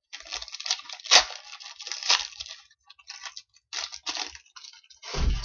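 Trading cards and their foil or plastic packaging being handled, an irregular crinkling and rustling with a sharp click about a second in and a low thump near the end.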